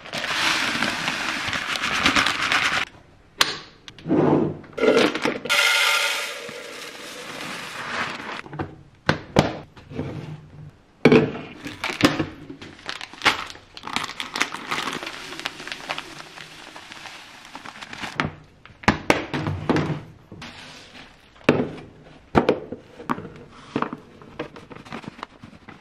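Plastic food packets crinkling as they are opened, dry food pouring into clear plastic storage containers, and many light clacks and knocks of plastic lids and containers on a countertop.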